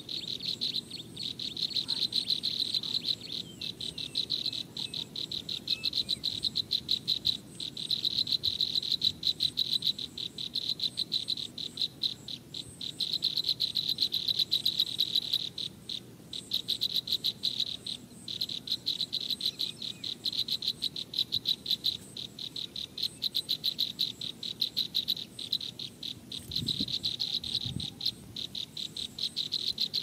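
Insects chirping: a fast, high-pitched pulsing trill that keeps repeating in runs of a few seconds with short breaks. A few soft low thumps come near the end.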